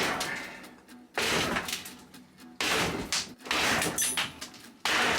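Four heavy blows, each starting sharply and fading over about a second. The blows come from a hand tool (a Bulgarian tesla, a hammer-adze) striking to force out a stuck part of the caravan.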